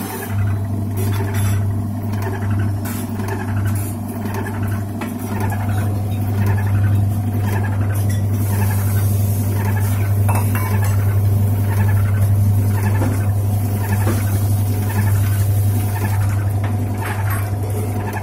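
Samsung washing machine on its spin cycle: a steady low motor and drum hum with a regular clinking rattle repeating about one or two times a second. The repairer traces the noise in spin to a small box left inside the machine.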